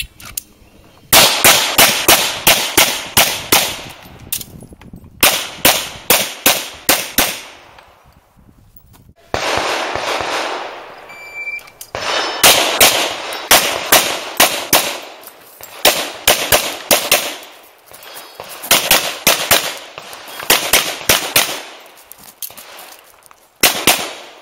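Pistol shots fired in quick strings of several shots, a few per second, broken by pauses of a second or two between strings.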